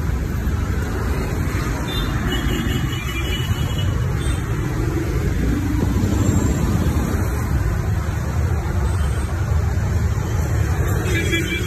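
Steady traffic noise from a busy city road with cars, buses, auto-rickshaws and motorcycles, its sound mostly low in pitch and unbroken.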